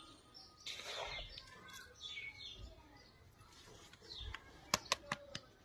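Birds chirping faintly, with the rustle of potting mix being sprinkled by hand over a plastic pot and a quick run of sharp clicks near the end.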